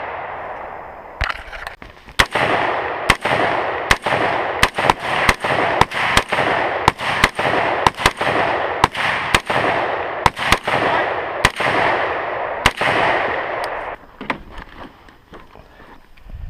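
Semi-automatic rifle, an AR in .350 Legend, fired rapidly about twenty times, roughly two shots a second, each shot echoing. The firing stops about three seconds before the end.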